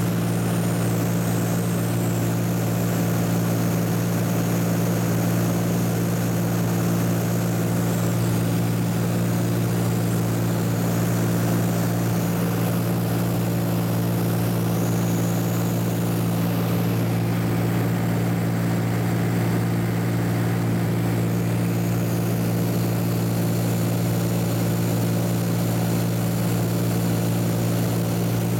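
Steady drone of a light propeller aircraft's engine and propeller, heard from inside the cabin in level flight.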